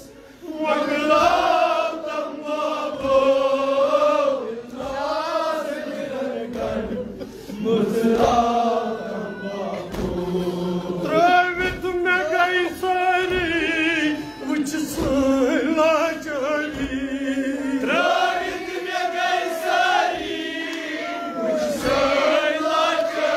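Male voices chanting a Kashmiri nauha, a mourning lament, as a group in a slow, wavering melody.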